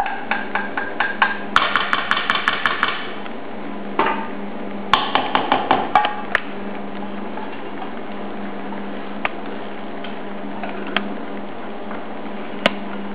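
Wooden spoon knocking and scraping against a copper saucepan in quick runs of taps, about seven a second, as melted chocolate is scraped out. There are two runs in the first six seconds, then a few single ticks, over a steady low hum.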